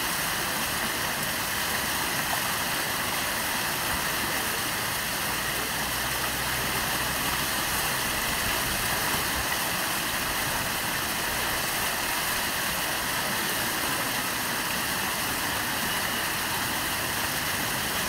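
Artificial rock waterfall: water pouring in thin sheets over stone ledges and splashing into a shallow pool, a steady, even rush of falling water.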